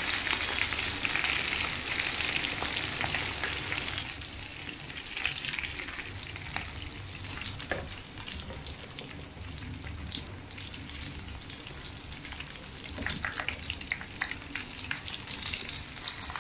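Breaded fish fillets shallow-frying in oil over a low flame, a steady sizzle and crackle that is louder for the first few seconds and then softer. Tongs click lightly against the pan a few times near the end.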